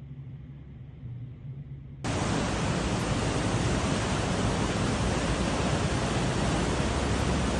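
A faint low hum for the first two seconds. Then, after a sudden jump, the loud, steady rushing of a swollen mountain river in flood, churning brown water surging over a street.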